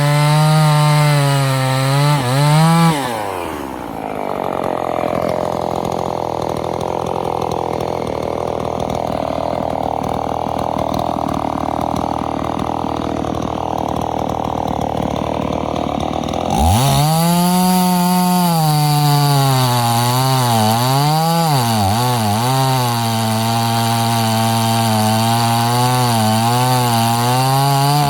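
Husqvarna 50 Rancher two-stroke chainsaw running at high revs, then dropping to a low, rough speed about three seconds in. About sixteen seconds in it revs back up and runs fast again, with the throttle eased off and opened a few times.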